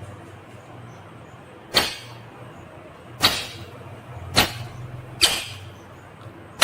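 Rose-ringed (ringneck) parakeet giving four short, sharp, shrill squawks, spaced about a second apart.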